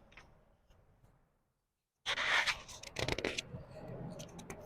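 Book pages being turned slowly by hand. A soft paper rustle fades out, and after a moment of dead silence the next page is lifted and turned, starting suddenly about two seconds in as a loud papery crinkle with a few crisp ticks a second later, then a quieter rustle.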